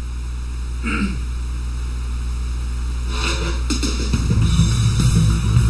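Karaoke backing track with drums and bass coming in about four seconds in, over a steady low hum from the room's sound system.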